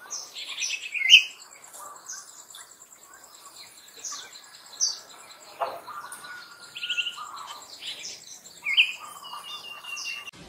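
Wild birds chirping in short, scattered high calls and a few longer whistles, the loudest about a second in and again near the end, over a fast, steady high insect trill.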